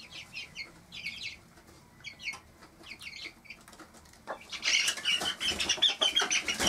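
Cuckoo Marans chicks peeping in quick clusters of short, falling cheeps. About four seconds in, a much louder flurry starts: wings flapping hard amid rapid, shrill chick peeping as a chick is picked up and the mother hen reacts.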